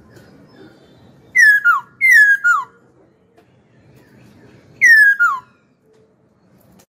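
Caged black-throated laughingthrush giving three loud, clear whistled calls, each made of two falling notes; the first two come close together and the third follows about three seconds later.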